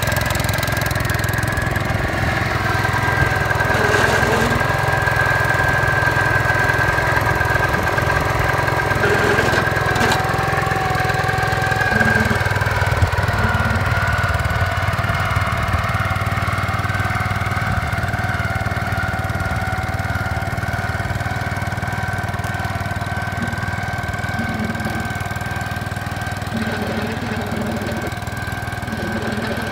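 Gravely 5665 two-wheel tractor's engine running steadily with its MA210 snow cannon attachment, with a steady high whine above the engine hum.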